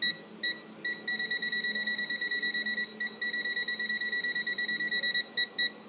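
UNI-T UT33L digital multimeter's non-contact voltage buzzer beeping on detecting live mains voltage. It gives a few separate high beeps, then a fast run of beeps for about four seconds, then separate beeps again near the end. The beep rate changes with the meter's distance from the live wire.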